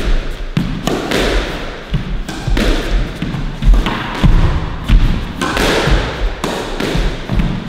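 Squash rally: the ball struck by rackets and thudding off the front wall and floor at an uneven pace, each hit echoing around the enclosed court.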